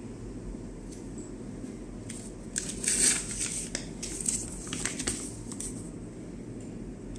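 Clear plastic vacuum food bag crinkling as it is picked up and flexed by hand: a run of crisp rustles from about two and a half to six seconds in, over a steady low background noise.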